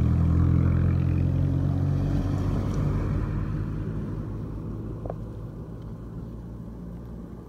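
A road vehicle's engine running close by, a steady low engine note that fades gradually as the vehicle drives away.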